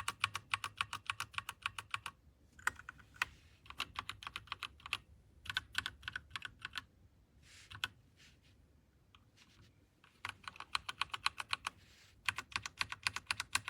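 Typing on a Royal Kludge RK61 60% mechanical keyboard: fast runs of key clicks, about ten a second, broken by short pauses. There is a sparser, quieter stretch of about two seconds past the middle.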